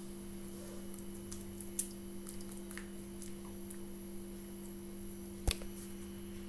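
Fingers pressing and poking borax-and-glue slime, making small sticky clicks and pops, with one sharper click near the end. A steady electrical hum runs underneath.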